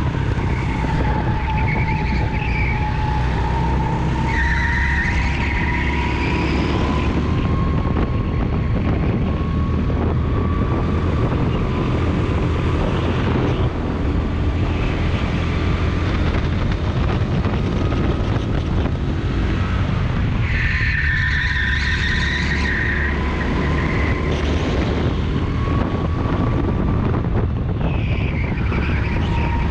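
Rental go-kart engine running hard from the driver's seat, its pitch slowly rising and falling with speed through the corners. Tyres squeal in the corners, about five seconds in and again around twenty seconds in.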